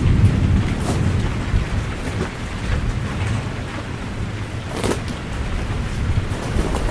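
Rain falling with a steady low rumble of thunder, and two brief sharper sounds about one second and five seconds in.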